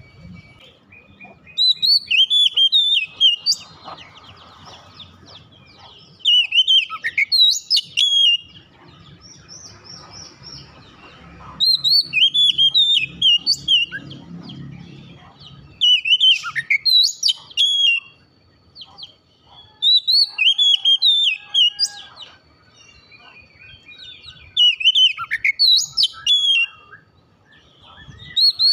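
Oriental magpie-robin singing: about seven loud bursts of fast, varied whistled song, each about two seconds long and roughly four seconds apart, with softer chirps between them.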